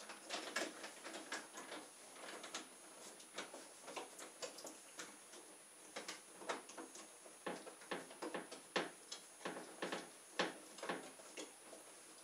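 Winding up the weight of a homemade gravity-powered boat by hand: irregular light clicks and ticks from the small plastic winding mechanism, several a second, with a few louder clicks in the second half.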